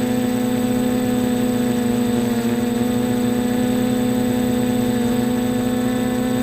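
Quadcopter's electric motors and propellers humming in flight, a steady buzz that holds one pitch throughout.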